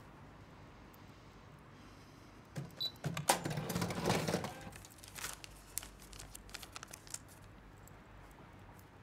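Paper banknotes rustled and leafed through by hand, a dense burst of crinkling a little under three seconds in, followed by scattered light clicks and taps that die away after about seven seconds.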